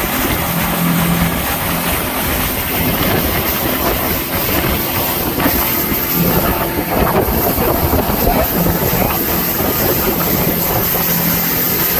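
Water taxi's motor running steadily under way, with a loud rush of wind and water noise.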